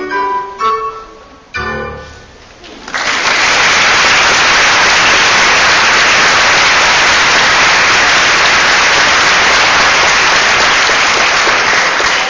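The last notes of a choir song with piano accompaniment die away, ending on a low piano chord. About three seconds in, the audience breaks into loud, steady applause that keeps going.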